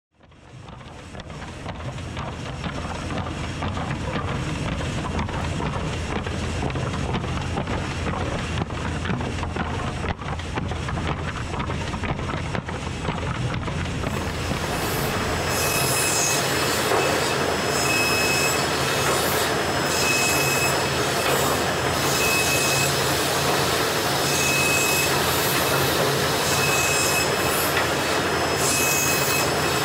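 HY400 high-speed center-split resaw running, splitting kiln-dried pine boards, with steady machine din and conveyor clatter. Partway through, the sound turns brighter and hissier, and a short high tone repeats about every two seconds.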